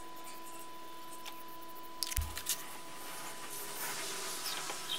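A faint steady hum with a few steady tones, then, about two seconds in, a short low thump and light clicks as a steel height gauge is handled on a granite surface plate. Its scriber then makes a faint scratching as it marks a line across steel coated with blue layout fluid, with small clicks and a sharper click near the end.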